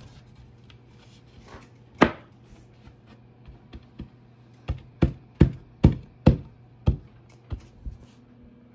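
Knocks on an IKEA ALEX particleboard panel as it is driven down onto its wooden dowels: one knock about two seconds in, then a run of about eight, two or three a second.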